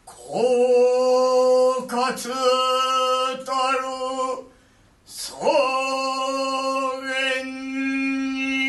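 A Zen master intoning a ceremonial chant in long, drawn-out tones: two phrases, each sliding up from low into a steady held pitch, with a short break between them about halfway through.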